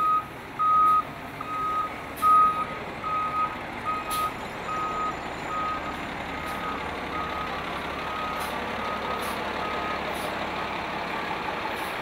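Fire engine's reverse alarm beeping at an even pace, about one and a half beeps a second, loud at first and fading until it stops about ten seconds in, over the steady noise of the truck's engine and the street.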